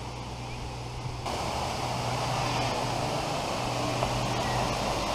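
Steady rush of water spilling from a stone channel and a small waterfall into a pool, cutting in suddenly about a second in, over a low steady hum.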